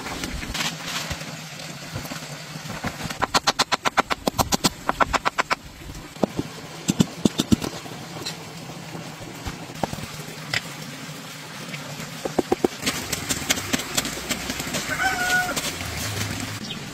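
A metal blade hammered into the cement base of a stove, chipping out an opening: a fast run of sharp taps a few seconds in, then slower, scattered knocks. A chicken clucks briefly near the end.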